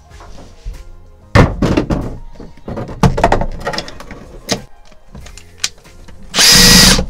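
Knocks and clunks of a metal mounting bracket being handled and fitted in place, then a power drill running in a short burst near the end and starting again just as it ends.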